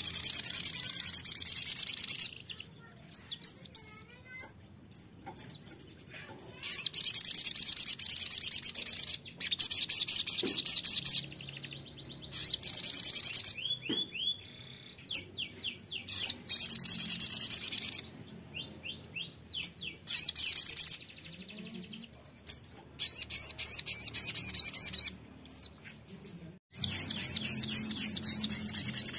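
Sogon sunbird singing: bursts of fast, very high twittering song a couple of seconds long, repeated with short pauses, and clear down-slurred whistled notes in some of the gaps.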